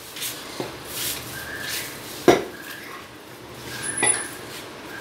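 Butcher's knife chopping a raw chicken on a wooden chopping block: one sharp chop about halfway through, among a few lighter cuts and knocks.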